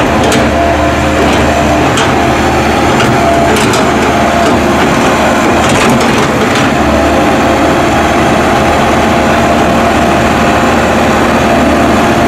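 Excavator's diesel engine and hydraulics working steadily, with a high whine over the engine note. There are a few sharp cracks in the first half and in the middle, as the bucket works the soil.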